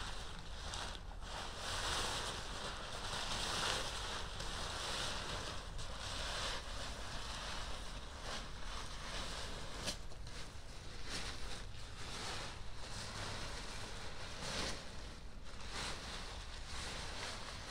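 Large fabric inflatable lemonade stand being unfolded and pulled about by hand: rustling and swishing of the fabric in irregular swells, with a few sharper flaps.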